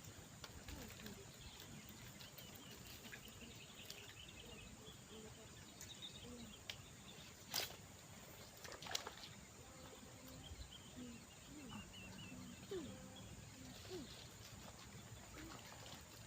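Faint outdoor nature ambience: a steady high insect drone with scattered small bird chirps and short calls. Two sharp clicks stand out, about seven and a half and nine seconds in.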